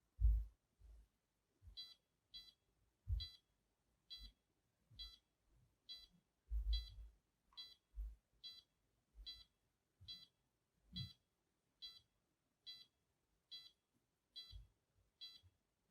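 Contec PM10 handheld ECG monitor giving short, high beeps, about one and a half a second and slightly uneven, while it records a reading: a beep for each heartbeat it detects. There are faint handling thumps between the beeps.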